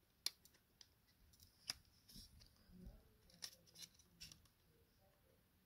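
Faint, irregular light clicks and ticks, about half a dozen, of the plastic and metal case parts of a disassembled Olympus OM-D E-M5 Mark II being handled and pried apart by fingers.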